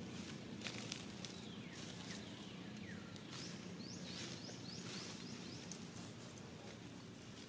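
Faint outdoor ambience with scattered small clicks and rustles and a quick run of short, high chirps about halfway through.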